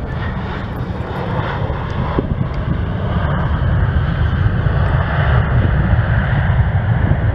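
Airbus A320-family airliner's twin jet engines running loud just after touchdown, swelling a few seconds in as the jet decelerates down the runway, typical of reverse thrust on the landing rollout.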